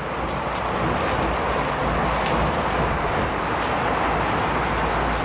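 Heavy rain pouring down: a steady, dense hiss of rain on surfaces.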